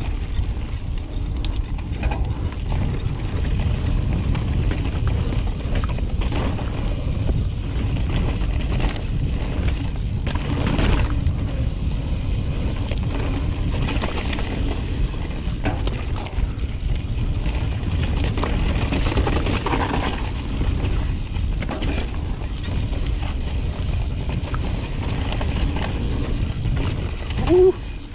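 Full-suspension mountain bike descending a rocky dirt trail, with wind rushing over the action camera's microphone, tyres crunching over rock and the bike rattling and clunking over bumps. There is a short rising squeak near the end.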